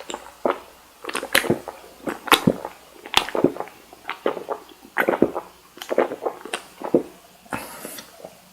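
Close-miked chewing of cooked cocktail shrimp: irregular wet smacks and clicks, about one or two a second.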